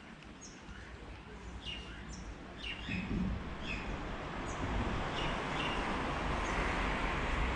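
Small birds chirping in short repeated calls, over a rush of noise that swells and grows louder from about three seconds in.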